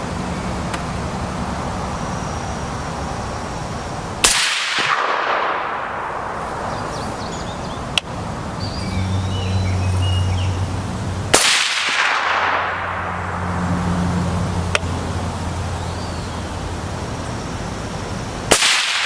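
Three suppressed rifle shots about seven seconds apart, fired through a Sig Sauer SRD762Ti titanium .30-caliber suppressor. Each is a sharp report followed by a long echo that fades over a second or two.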